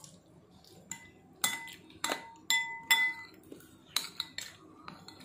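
A metal spoon clinking against dishes: about seven or eight sharp, ringing clinks at uneven intervals.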